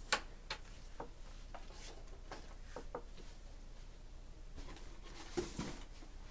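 Faint scattered clicks and light taps, then a short stretch of rustling handling noise about five seconds in.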